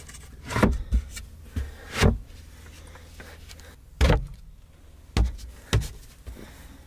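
Plywood bed-extension panel being shifted and knocked into place on a camper's sleeping platform: about six irregular knocks and thumps of wood on wood.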